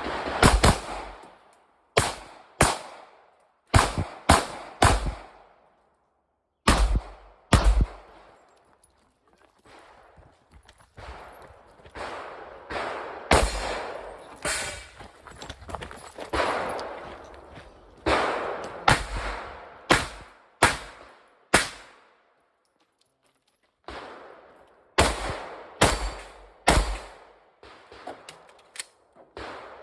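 Rapid gunfire from a competitor shooting a timed 3-gun stage: strings of single shots, often in quick pairs, broken by two short pauses, about six seconds in and about twenty-two seconds in.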